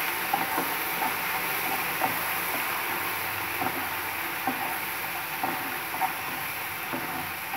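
Chopped onion, capsicum and sauces sizzling steadily in oil in a frying pan over a low flame, with a wooden spatula stirring and scraping through them and giving small light knocks against the pan now and then.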